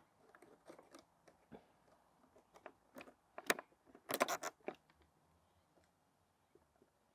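Small plastic clicks and rattles of bulb holders being handled and pushed into the back of a Citroën DS instrument cluster, with a short, louder run of clicking about four seconds in.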